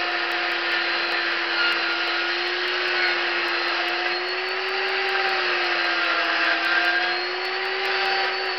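Chainsaw running at full speed as its bar cuts into a wood block during carving: a steady high whine whose pitch wavers slightly as the cut loads it.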